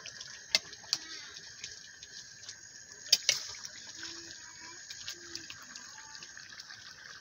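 A steady hiss with two thin high whining tones running through it, broken by sharp clicks: two close together about half a second in and two more around three seconds in.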